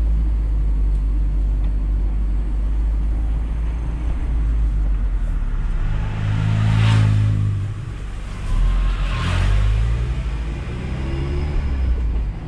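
Mazda MX-5 Miata's four-cylinder engine running at low speed, heard from the open-top cockpit with road and wind noise. An oncoming car passes close by with a swoosh about seven seconds in, and a second swoosh follows about two seconds later as the Miata's engine note rises again.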